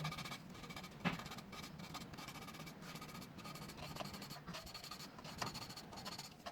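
Faint scratching and rubbing, with a sharp click about a second in, over a low steady hum.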